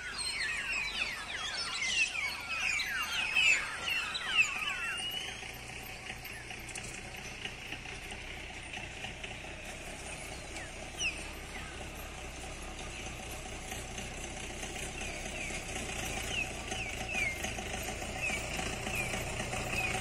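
A flock of small birds calling with many quick, falling chirps. The calls are dense for the first five seconds, then sparser over a low steady hum.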